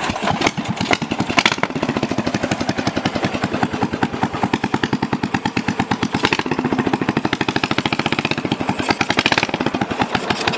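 Racing lawn mower engine running with a rapid, even firing beat, its level rising and falling slightly.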